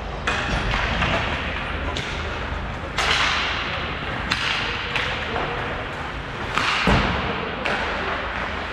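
Sounds of a hockey game in play: a series of sharp knocks and thuds about once a second, with a scraping hiss after several of them.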